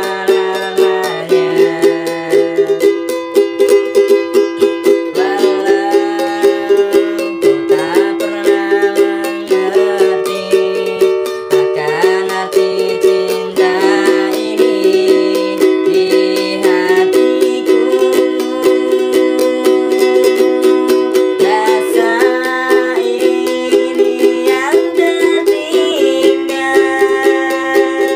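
Four-string ukulele strummed in a steady, even rhythm, chords carrying a song's melody.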